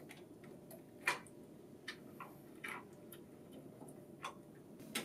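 A handful of small plastic clicks and taps as fingers handle a Lexmark printer's pick roller, working the rubber pick tires off their hub; the sharpest click comes about a second in.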